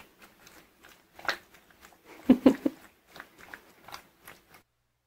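A pet eating close by: irregular wet chewing and smacking, louder for a moment about two and a half seconds in, stopping abruptly near the end.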